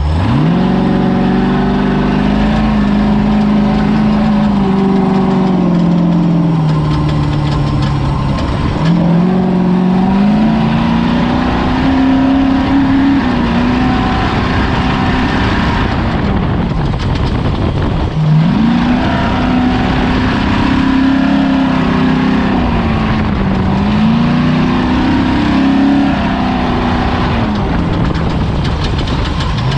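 Ford Ranger desert race truck's engine driven hard, its pitch climbing and falling as the throttle is worked. It rises sharply right at the start, again about nine seconds in, and again at about eighteen seconds, easing off between, over constant loud noise.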